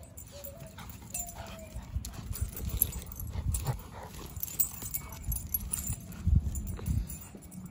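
A Siberian husky and a yellow Labrador retriever puppy playing tug of war over a rope toy: low play growling with scuffling paws, loudest about six seconds in.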